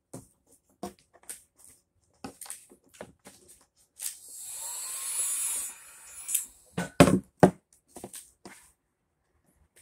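Corded heat gun blowing a steady hiss for about two seconds, about four seconds in, aimed at vinyl wrap to soften it. Short scraping and rustling handling noises come before and after, with a few loud knocks about seven seconds in.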